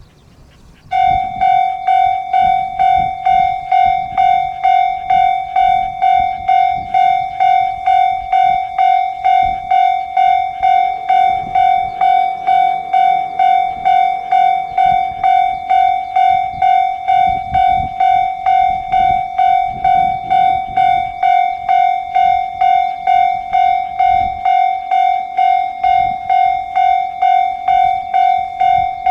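Japanese railway level-crossing alarm starting up about a second in, sounding a repeating electronic bell tone about twice a second, the warning that a train is approaching the crossing.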